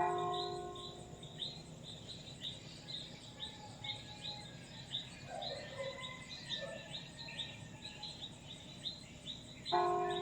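Small birds chirping in quick repeated high, falling notes throughout, with a few lower calls in the middle. A church bell's ring fades away over the first second, and the bell is struck again near the end.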